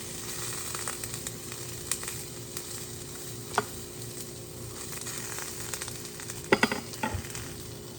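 Mushrooms and cherry tomatoes sizzling steadily in a hot frying pan, stirred with a utensil that knocks against the pan now and then. The loudest part is a quick cluster of knocks about six and a half seconds in.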